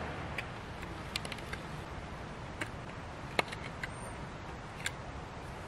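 Knife whittling a bark-covered branch: a scatter of small, sharp clicks as the blade cuts chips from the wood, the loudest about three and a half seconds in, over a steady low hiss.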